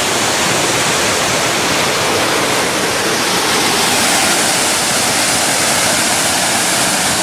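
Small waterfall and stream running high after heavy rain: a loud, steady rush of falling and flowing water.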